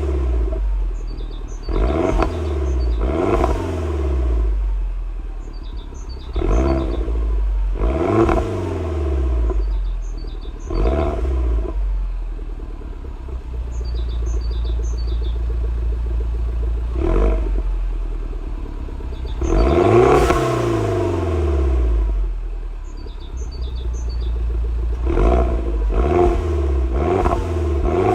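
Mini John Cooper Works engine through its JCW exhaust, idling and revved in short blips every few seconds, each rising and falling back to idle, with a longer, higher rev about two-thirds of the way through and a run of quick blips near the end.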